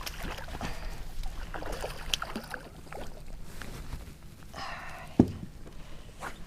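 Fishing handling noises in a boat: scattered light clicks and rustles over a low steady rumble, with one sharp knock about five seconds in.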